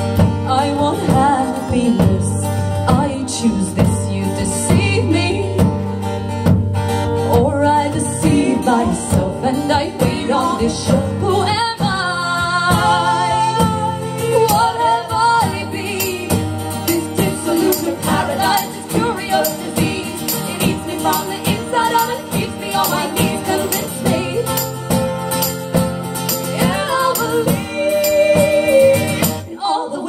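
Live song: women's voices singing to two strummed acoustic guitars.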